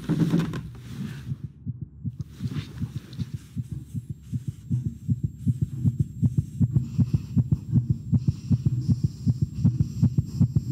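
Heartbeat sound effect in a horror film soundtrack: a pounding run of low, evenly spaced thumps that speeds up from about halfway through.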